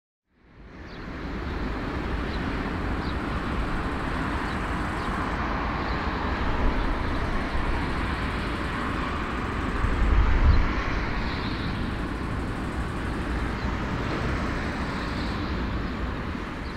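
Airbus A340-313's jet engines running steadily at taxi power, a continuous rushing noise over a deep rumble. It fades in over the first second or two, and the low rumble swells about ten seconds in.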